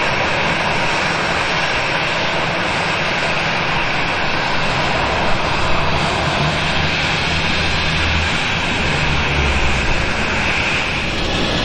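Airbus A320-family airliner's jet engines running at idle: a steady rushing whine, with a deeper low rumble swelling in the middle.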